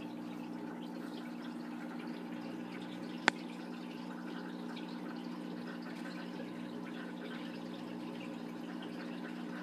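Aquarium filter running: a steady hum with a faint trickle of water, and a single sharp click about three seconds in.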